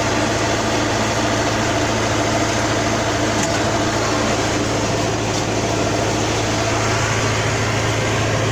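Combine harvester running steadily, a constant low engine hum under the even rushing noise of the machine.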